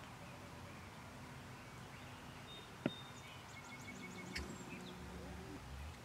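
Quiet rural field ambience with faint high bird chirps in quick runs. A single sharp click about three seconds in and a lighter knock about a second and a half later stand out.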